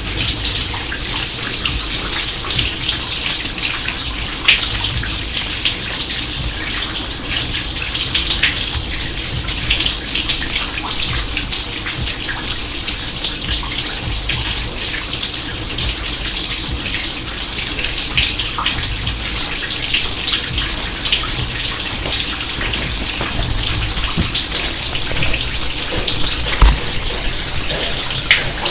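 Water from an overflowing kitchen sink pouring and splashing steadily, with a constant hiss and many small splashes and drips.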